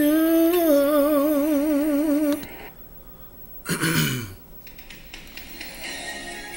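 A singer holds the last note of a phrase with a wide vibrato for about two seconds, then stops. After a short pause comes a brief rough vocal sound that falls in pitch, and faint music begins near the end.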